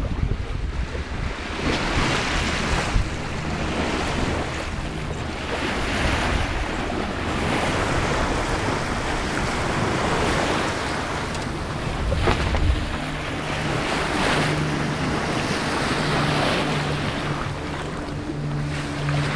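Water rushing and splashing along the hull of a sailing yacht moving fast under sail, swelling and easing every second or two as the bow meets the waves, with wind buffeting the microphone. A low steady hum joins a little past the middle.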